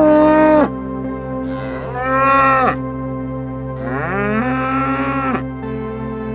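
A calf mooing three times, each call roughly a second long, rising at the start and dropping away at the end; the third call is the longest. Soft background music runs underneath.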